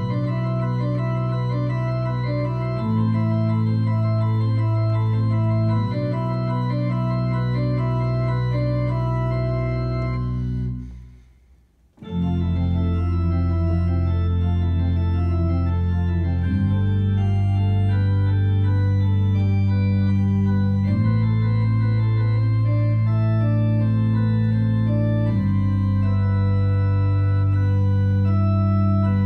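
Two-manual organ playing sustained chords over a slow bass line that changes every three to four seconds, with a repeating higher figure above. About ten seconds in the sound fades away for a second, then comes back with a deeper, fuller bass.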